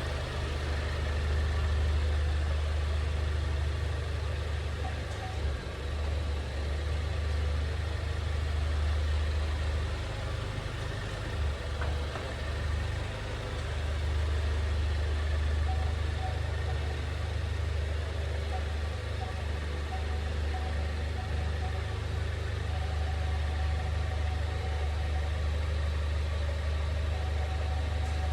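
Steady low rumble and road noise inside a 2020 Ford Mondeo wagon's cabin as it drives.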